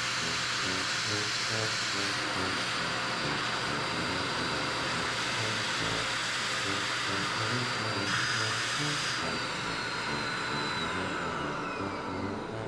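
A small electric motor running with a steady rush of air, like a blower; about nine seconds in its whine starts falling steadily in pitch as the motor winds down.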